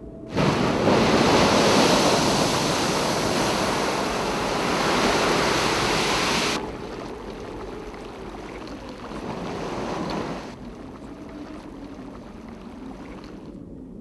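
Geothermal steam rushing and hissing from an erupting geyser and steaming vents. The loud rush starts suddenly, drops abruptly about six and a half seconds in, and falls again to a quieter hiss about ten and a half seconds in.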